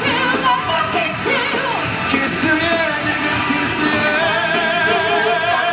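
Musical-theatre singing with instrumental accompaniment; about four seconds in, the voice holds a long note with vibrato.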